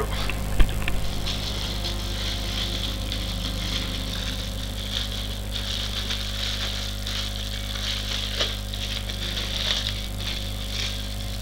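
Clear plastic packaging bag crinkling and rustling continuously as it is handled and opened to take a mask out, over a steady low electrical hum.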